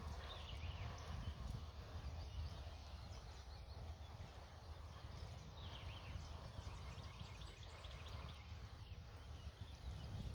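Wind buffeting the microphone in a steady low rumble, with a few faint short chirping bird calls, about half a second in and again around five and a half seconds.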